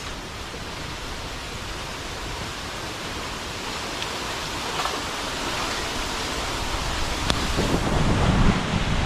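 Bonfire burning strongly: a steady rushing roar that slowly grows louder, with a few sharp crackles. Low rumbling builds near the end.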